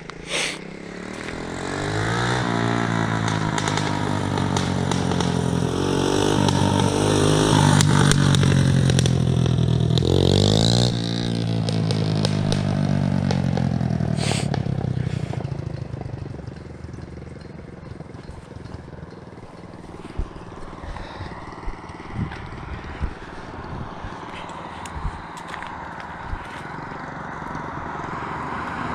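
ATV engine running under throttle as the machine rides: it revs up twice, is loudest about eight seconds in, then fades away after about fifteen seconds. Scattered small clicks and knocks follow.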